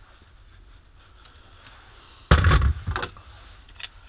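Two perforated metal strips, joined by a rivet, set down onto a workbench: a loud thud and metallic clatter about two seconds in, followed by a few light clicks.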